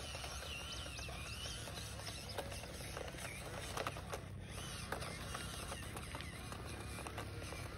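Small birds chirping, with scattered light crackles and clicks as a small RC crawler's tyres roll over dirt, pebbles and twigs.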